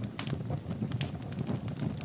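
Fire burning in a fireplace: a low, steady rumble of flames with frequent sharp crackles and pops, about half a dozen in two seconds.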